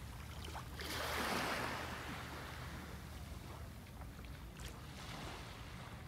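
Gentle waves lapping on a sandy beach: a soft wash of water swells about a second in and eases off, over a steady low rumble.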